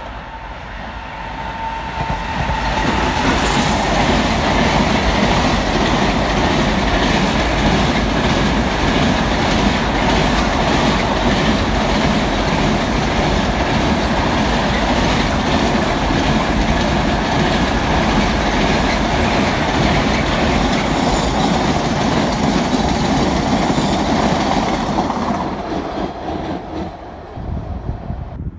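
Container freight train passing close by on a main line: there is a high steady tone as the locomotive approaches, then a long rake of wagons rumbles and clatters over the rails for about twenty seconds. The noise fades away near the end.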